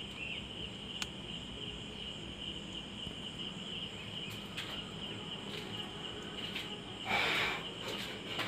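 Steady high-pitched chirring of insects in the background over a faint hum, with a short rustle about seven seconds in.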